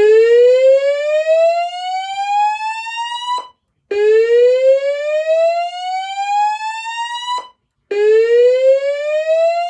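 Slow-whoop evacuation tone from a Notifier DVC voice evacuation system, played over fire alarm speakers between repetitions of its fire message. Three rising sweeps, each climbing steadily in pitch for about three and a half seconds before cutting off, with short gaps between them.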